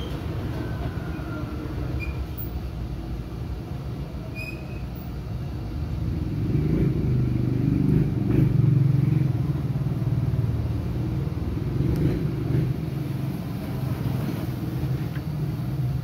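A steady low rumble that swells louder from about six seconds in and eases off again near the end.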